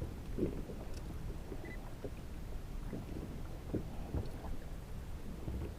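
Water lapping and slapping against a kayak hull, with small irregular knocks over a low wind rumble.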